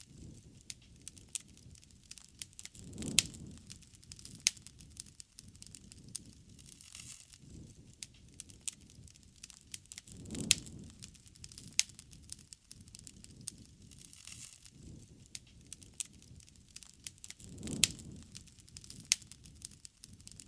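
Wood fire crackling, with many sharp pops and snaps. A low rush of flame swells up three times, about every seven seconds.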